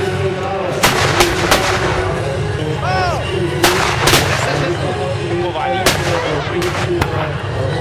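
Black-powder muskets firing in a ragged volley: about eight sharp shots at irregular intervals, some single and some in quick pairs.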